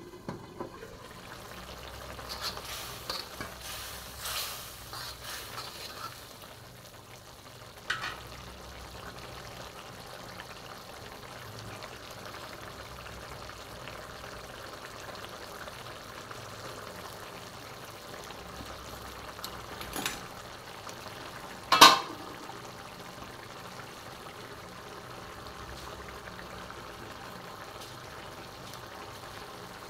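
Frog curry simmering in a pan, a steady bubbling sizzle. Scattered clinks and scrapes of a utensil against the pan come in the first few seconds, and one sharp knock, the loudest sound, comes about twenty seconds in.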